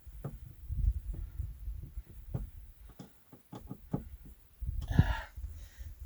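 Handling noise from hand work on the battery box outlet: scattered light clicks and knocks over a low rumble, with a short rustle about five seconds in.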